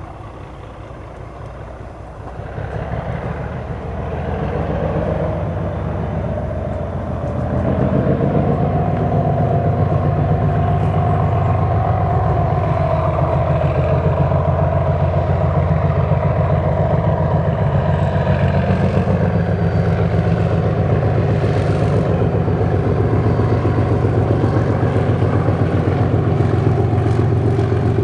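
Heavy diesel locomotives, a Class 56 and the Deltic D9016, working a train, unseen. Their deep engine drone grows louder over the first eight seconds, then stays loud and steady with a whine held above it.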